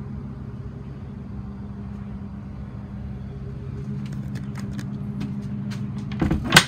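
A steady low machine hum runs throughout. From about four seconds in there are light clicks and rattles of handling. Near the end comes one loud clunk as the black paddle latch of a white access door is worked.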